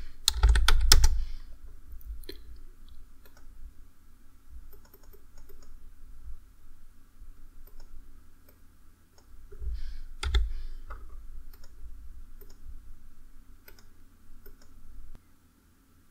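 Computer keyboard and mouse clicking while values and a file name are typed in: a quick run of keystrokes near the start, scattered light clicks after it, and one louder click about ten seconds in. A faint steady hum lies underneath.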